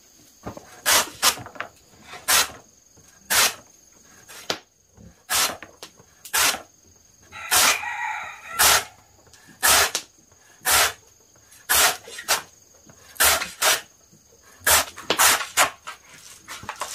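Machete chopping through a thick, pale plant stalk onto a wooden block, cutting off one slice about every second with a sharp knock each time, sometimes two in quick succession. A rooster crows once around the middle.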